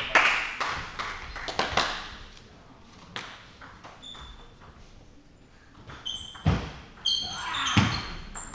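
Celluloid-style table tennis ball clicks and pings off the table and bats in a sports hall, with a few sharp clicks early on, a quiet gap, and the clicks starting again near the end alongside a short louder swell of noise.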